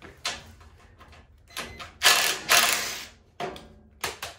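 Blue cordless drill/driver running in several short bursts as it spins nuts off a lawn tractor's frame. The longest, loudest run is about two to three seconds in.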